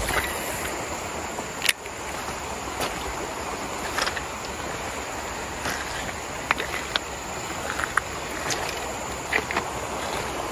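Steady rush of a flowing river, with a few scattered sharp clicks.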